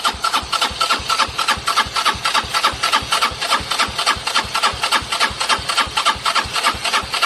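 125cc moped engine idling steadily just after starting, with an even, fast beat of exhaust pulses.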